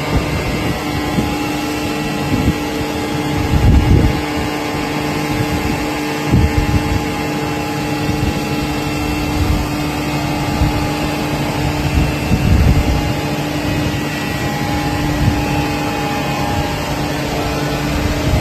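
Hydraulic metal baler running: a steady machine hum with several constant tones over a low rumble, and a few louder low surges along the way.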